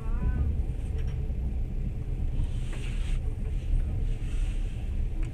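Steady low rumble of a moving passenger train heard from inside the carriage, with a few light clicks about a second in and a brief hiss around three seconds in.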